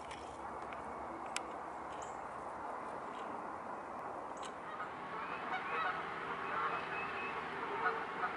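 Birds calling over a steady background, with a flurry of short chattering calls building up from about five seconds in.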